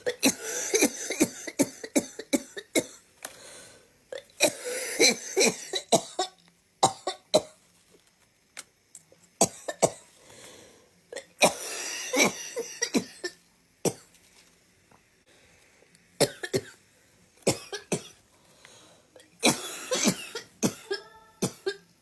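People coughing in a run of separate bouts: sharp, short coughs, several in quick succession, then brief pauses, with the odd throat-clearing.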